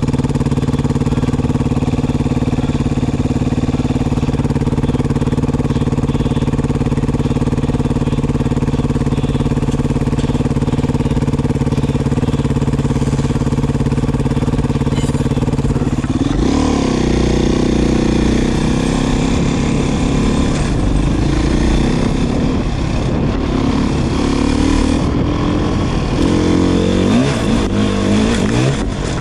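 Beta 500 RR single-cylinder four-stroke dirt bike idling steadily. About halfway through it pulls away, and the engine pitch rises and falls repeatedly as the rider works the throttle and gears.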